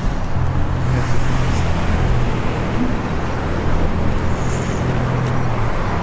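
Road traffic: vehicle engines running with a steady low hum over road noise.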